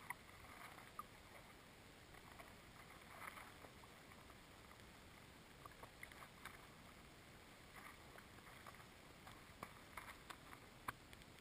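Mostly quiet, with faint scattered knocks, scrapes and splashes as a large pike is hauled up through an ice-fishing hole on a gaff hook and thrashes on the snow. The sharpest knock comes near the end.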